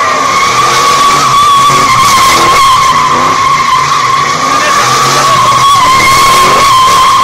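Car doing a burnout: its spinning tires screech in one unbroken, steady high squeal while the engine runs at high revs, rising and falling under the throttle.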